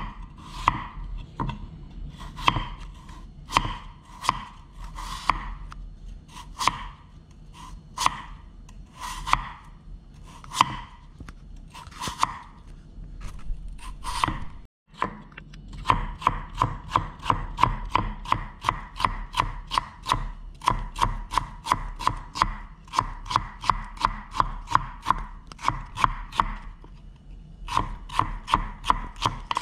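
Chef's knife cutting a raw potato on a wooden chopping board, each stroke ending in a knock of the blade on the board. First it slices the potato thinly at about one or two strokes a second; after a short break about halfway, it cuts the slices into thin shreds at a fast, even rate of about three chops a second.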